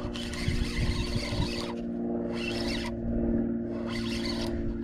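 Steady drone of a boat engine running at a constant pitch, with a few short bursts of hiss over it.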